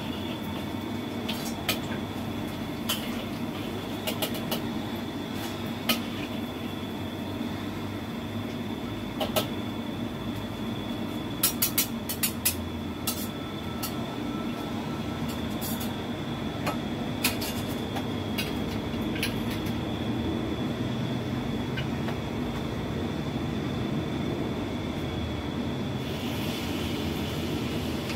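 A metal spatula and a wire skimmer clink and scrape against a wok while fried sweet potato is lifted out, over a steady low cooking hum with a faint thin whine. A hiss sets in near the end.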